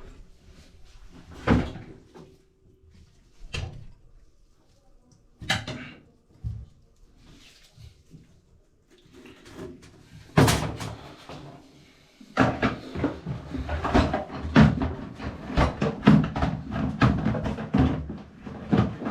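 Hard knocks and clattering from snaking a hair-clogged bathtub drain with a Ridgid K-39 electric drum snake: a few separate knocks, then a dense run of rattling and banging over the last seven seconds.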